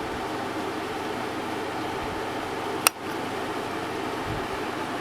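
Steady rush of a room air conditioner's fan, with heavy rain heard behind it. A single sharp click about three seconds in.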